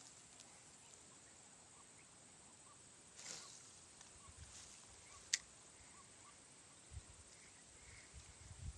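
Near silence: faint rural ambience with a steady high insect hum and faint chirps repeating about twice a second. A soft swish comes about three seconds in, and a single sharp click about halfway through.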